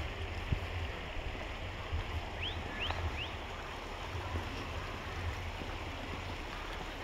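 A shallow mountain stream running over stones, heard as a steady rushing, with wind buffeting the microphone in a low fluttering rumble. About halfway through come three short high rising chirps.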